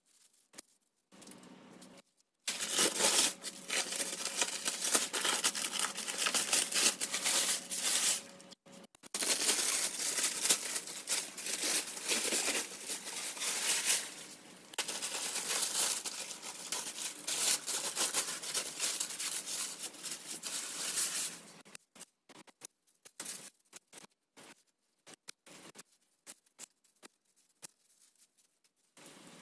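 Masking tape and masking paper being peeled and torn off a car body, with the paper crinkling, for about twenty seconds before it stops; a few faint ticks follow.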